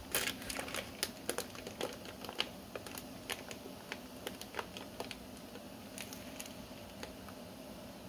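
Plastic poultry shrink bag holding a whole dressed chicken crinkling and crackling as it is dipped and held in hot water, with quick irregular crackles that thin out after about three seconds. A steady low hum runs beneath.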